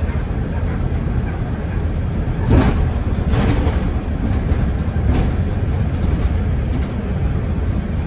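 Mercedes-Benz Citaro city bus driving: a steady low engine and road noise, with a few knocks or rattles about two and a half, three and a half and five seconds in.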